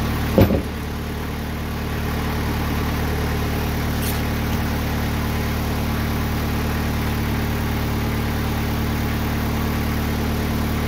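TimberKing 2020 sawmill engine idling steadily between cuts. A single loud thump about half a second in as a sawn slab is lifted off the log, and a faint click near the middle.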